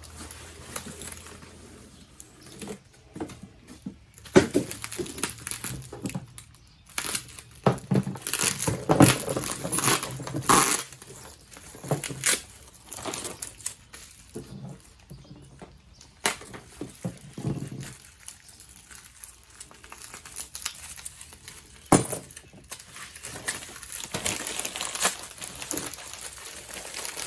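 Plastic packaging and bubble wrap crinkling and rustling as small still parts are unpacked, with a few sharp knocks of parts being set down on the workbench.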